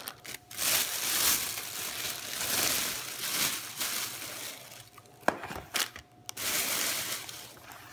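Plastic wrappers of frozen burritos and chimichangas crinkling as they are handled and laid out, in two long stretches, with a sharp click about five seconds in.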